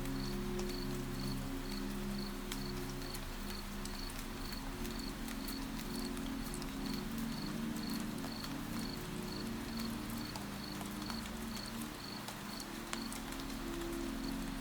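Steady night rain ambience with the soft patter of drops, and a cricket chirping about twice a second, under a soft held music pad.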